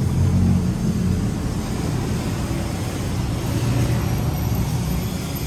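Street traffic rumble: vehicle engines running steadily, low and continuous.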